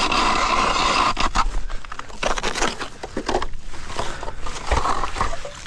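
Mora hand ice auger cranked through thin first ice: the steel blades shave and crunch the ice in a steady grinding scrape, full of sharp crackles, easing off near the end.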